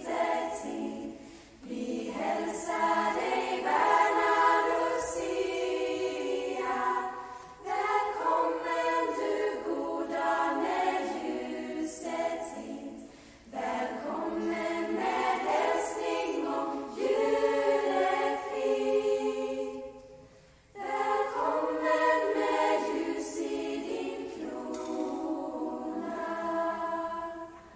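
A choir of young women singing a Swedish Lucia song together with the Lucia soloist. They sing long held phrases, with short breaks about every six seconds.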